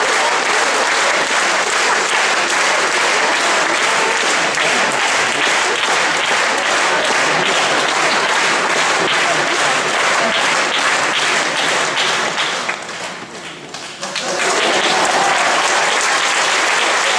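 Large concert-hall audience applauding steadily. The applause drops away briefly about three-quarters of the way through, then comes back at full strength.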